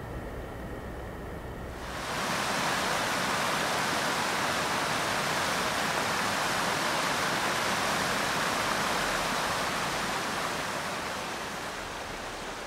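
A small mountain stream cascading over rocks: a steady rush of water that cuts in about two seconds in, after a quieter low rumble, and eases off a little near the end.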